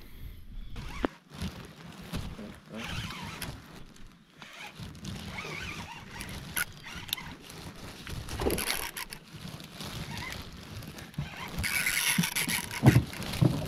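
Handling noise from a baitcasting rod and reel in an aluminium boat: scattered small clicks and knocks, a brief hiss about twelve seconds in, and two low thumps near the end.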